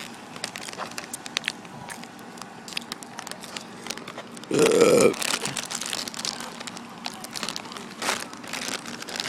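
Crinkling and crackling rustle with many small clicks, broken about halfway through by one short, loud sound lasting about half a second.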